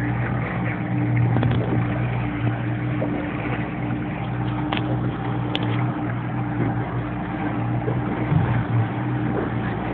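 Boat engine running steadily, a low hum with a constant drone over a noisy wash.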